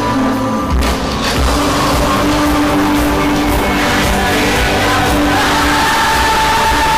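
Music with held notes over a steady low beat.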